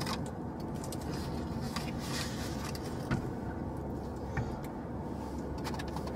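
Steady low hum inside a parked car's cabin, with a faint click about three seconds in and another past four seconds.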